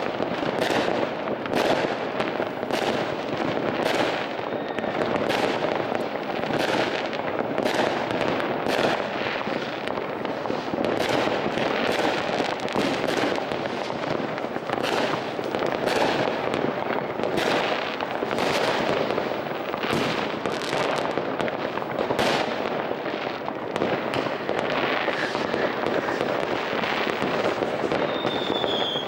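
Fireworks rockets and firecrackers going off in dense overlapping bangs and crackling, with no pause. A short whistle, falling slightly in pitch, near the end.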